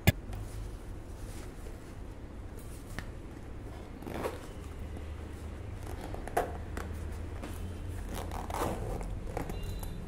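A fabric lunch bag's zipper is pulled open in a few short rasps, mostly in the last couple of seconds, along with handling of the bag. There is a sharp click right at the start, and a low steady hum throughout.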